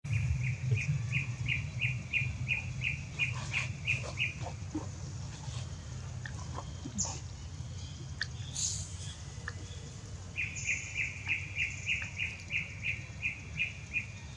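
A bird calling in a steady series of short, high, evenly spaced notes, about three a second, for about four seconds. It pauses, then calls again for the last four seconds. A few scattered higher chirps fall in the gap, over a steady low rumble.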